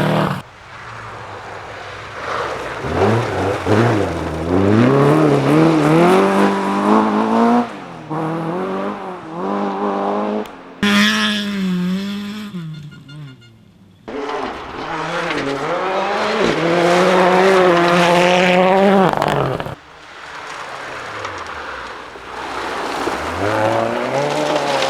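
Rally cars accelerating hard, engines revving up through the gears with the pitch dropping back at each shift, in a string of short passes that cut abruptly from one car to the next.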